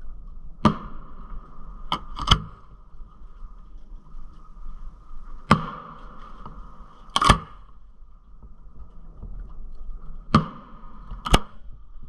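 Aerial fireworks shells going off: about seven sharp bangs at irregular intervals, two of them in quick succession.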